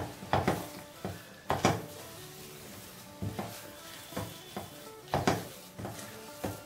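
Silicone spatula stirring and scraping a thick, cooked rice-rava dough around a non-stick pan, mixing in ghee: a string of irregular soft scrapes and pats, roughly one or two a second. Faint background music with held tones runs underneath.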